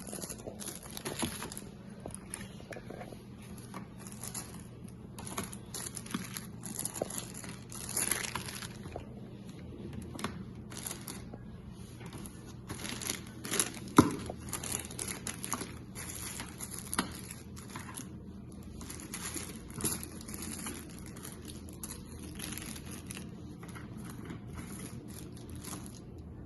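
Plastic packaging crinkling and rustling as cables and adapters are handled, with scattered small clicks and one sharp knock about halfway through.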